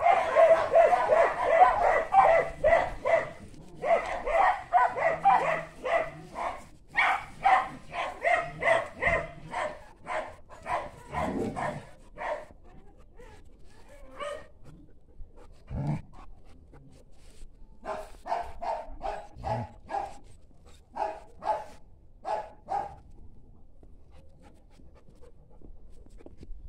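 A dog barking over and over in fast runs of about two or three barks a second, thinning to scattered single barks after about twelve seconds and stopping a few seconds before the end.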